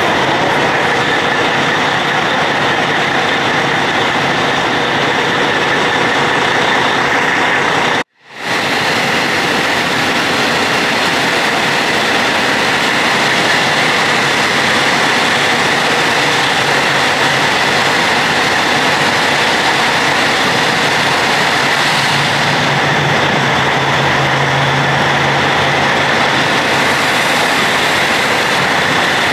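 Truck engine running loud and steady, with a brief break about eight seconds in and a stronger low hum for a few seconds near the end.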